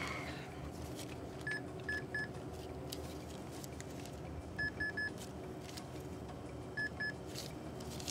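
Checkout register beeping as a cashier rings items in: short, identical high beeps in quick groups, three, then three, then two, over a faint steady store hum.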